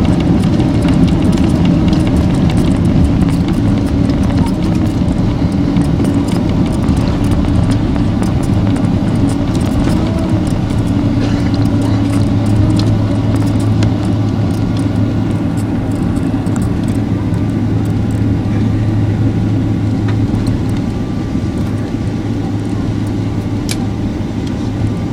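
Steady loud roar of a Boeing 767-336ER's Rolls-Royce RB211 engines and airflow heard inside the passenger cabin, with a steady low hum and small cabin rattles, easing slightly toward the end.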